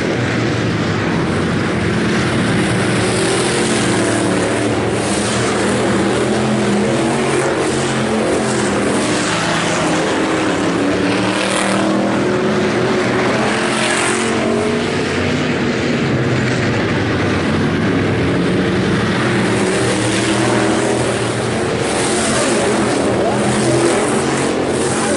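Several IMCA Hobby Stock race cars at racing speed, their engines running together and rising and falling in pitch as they work around the track.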